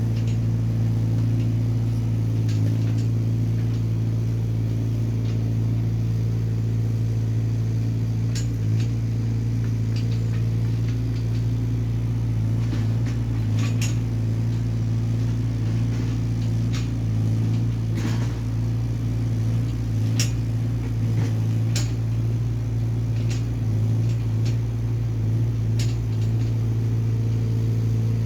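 Small Hyundai excavator's engine running at a steady speed, with occasional sharp clicks and knocks over the hum.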